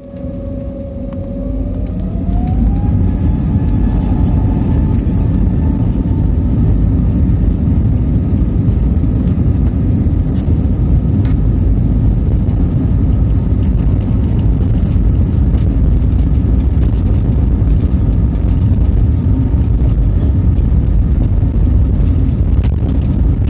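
Airliner engines spooling up for takeoff: a whine rises in pitch over the first few seconds as the sound swells, then settles into a loud steady rumble during the takeoff run.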